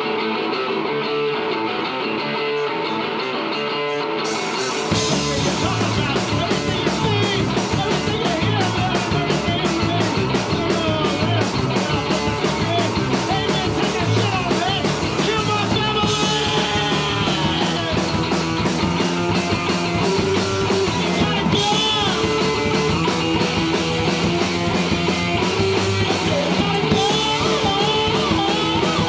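Live rock trio playing through a PA: electric guitar alone for the first few seconds, then drums come in about five seconds in and the full band plays on with guitars and drums.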